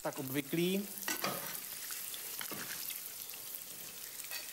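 Hot oil sizzling steadily in a frying pan as meatballs fry, with a few light clicks of a slotted spoon lifting them out to drain.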